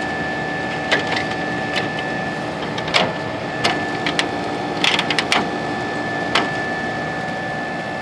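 Comfort Aire 15,100 BTU window air conditioner running steadily, its compressor and fan giving a constant hum with a steady high tone. Over it come a series of sharp plastic clicks and knocks as the front grille is fitted back onto the unit, clustered around the middle.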